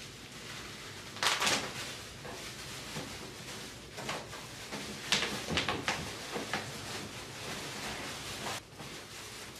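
Plastic wrapping crinkling and rustling as a coffee machine's bean container is pulled out of its bag by hand, with louder crackles about a second in and again around five to six seconds in.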